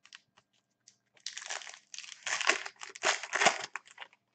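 Foil wrapper of a trading card pack crinkling as it is handled and opened, in a run of crackling bursts from about a second in until near the end. There are a few light ticks of cards being handled before it.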